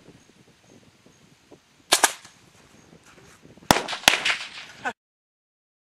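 Bottle rockets going off in quick succession: a pair of sharp pops about two seconds in, then two sharp bangs about half a second apart with a hiss between them. The sound cuts off abruptly about a second later.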